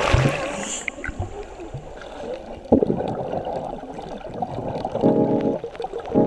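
Sea water sloshing and gurgling around a camera taken into the water, with irregular splashes. Short bursts of music come in near the end.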